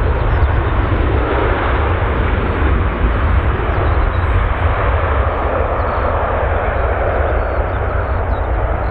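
Jet airliner engines running, a loud, steady roar with a deep rumble underneath. It swells about a second in and again later.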